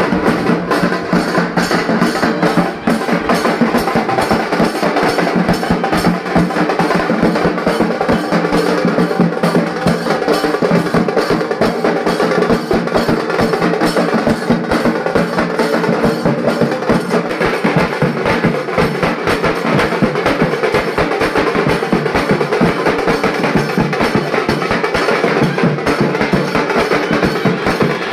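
Music with drums and percussion, a fast, dense beat running steadily throughout.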